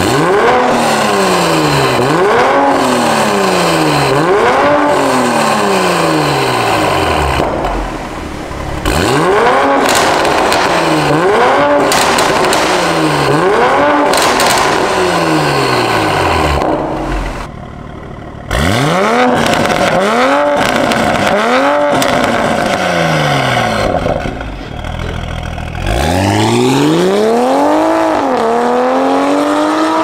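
Toyota MK5 Supra's 3.0-litre turbocharged B58 straight-six revved repeatedly while standing, through a valved catback exhaust and catless downpipe with the valves open. Each rev rises quickly and falls back, about one every two seconds, in several runs with short pauses. Near the end comes one longer rev held high before dropping back.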